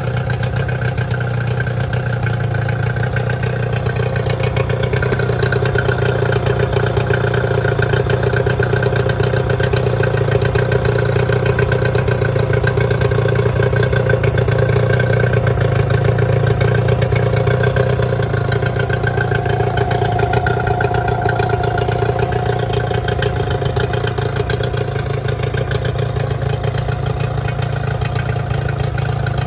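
2007 Yamaha 9.9 hp four-stroke tiller outboard running steadily on a test stand, fed by a flush hose.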